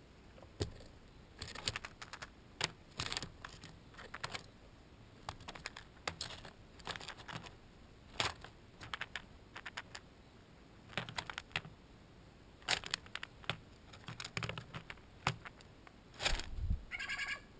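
Steller's jay pecking at and picking up peanuts in the shell from a foil tray, making clusters of sharp clicks and taps of beak on shell and tray. A heavier thump with a quick rattle comes near the end.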